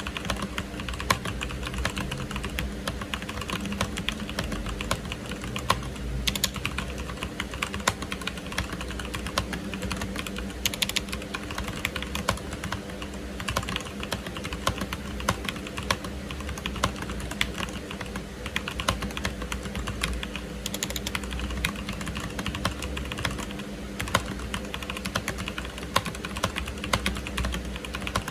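Steady typing on a Machenike K7 mechanical keyboard with Zorro black linear switches, a Chinese clone of Cherry MX Black. Key presses clack in a continuous run over a steady low hum.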